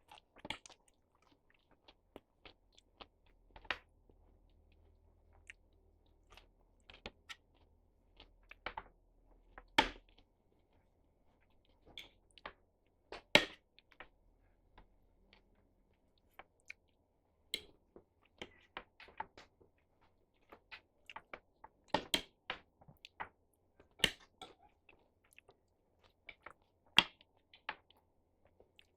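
A person chewing and eating adobong sitaw, string beans with pork, close to the microphone: soft mouth sounds broken by many short, irregular clicks and ticks.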